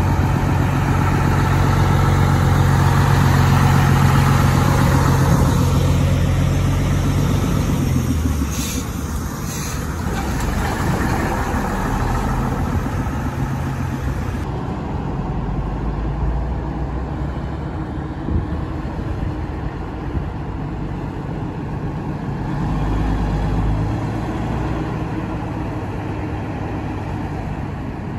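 Diesel engine of a classic Leyland eight-wheel flatbed lorry running as it moves off, loudest in the first few seconds and then fading as it drives away. After that, quieter heavy engines run at idle.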